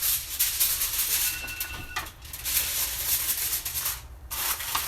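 Aluminium foil crinkling and rustling in three stretches as it is pressed and crimped over a baking pan to seal it airtight.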